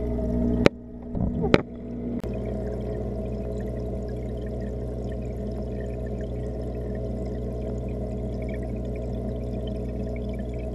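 Steady low hum and water noise of an aquarium, heard underwater through the camera's waterproof housing. About a second in come a few sharp knocks, two close together and a fainter one just after.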